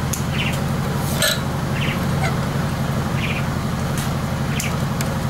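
A steady low engine-like hum, with short high chirps about every one and a half seconds and a few light clicks.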